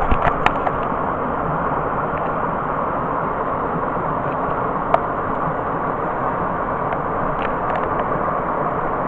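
Steady rush of water falling over a small cascade on a brook, with a few light clicks in the first half-second and one about five seconds in.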